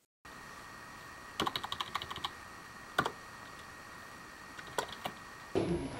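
Typing on a computer keyboard: a quick run of keystrokes about a second and a half in, a single key a second later, and a few more near the end, over a faint steady electrical whine.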